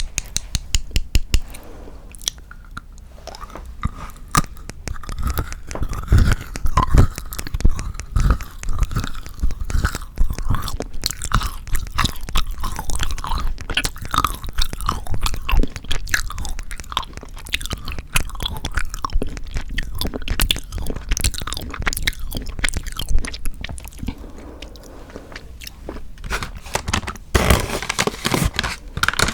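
Close-miked chewing of chocolate: a steady run of small crunches and wet clicks, with a louder burst of crunching near the end.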